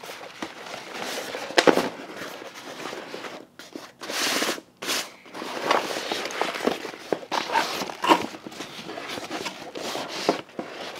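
Crinkling and rustling of a Tom Bihn Monster Truck fabric tote as it is unfolded and handled, full of sharp crackles, with a denser swishing rustle a little after four seconds in.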